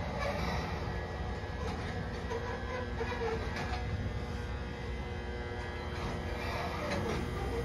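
Hakodate city tram (streetcar) running on its rails: a steady low rumble with a faint hum and scattered light clicks.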